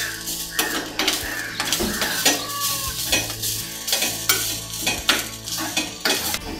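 A metal spoon scrapes and taps against a small black pan, stirring grated coconut as it roasts, in repeated strokes about two a second.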